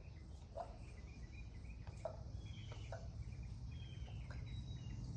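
Faint outdoor ambience: short high chirps that fall in pitch, over a steady low hum, with about four soft knocks spread through it.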